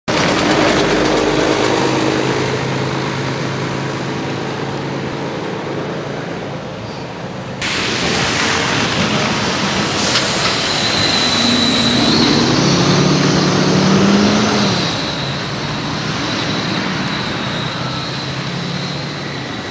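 Street traffic: city buses and cars passing close by, engines humming and tyres on the slushy road. About eight seconds in the sound changes abruptly, and around twelve to fifteen seconds in a passing engine's pitch rises and then falls away.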